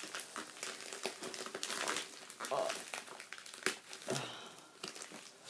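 Packaging being crinkled and rustled in irregular bursts as hands pull and squeeze at a mailed package, trying to tear it open without scissors.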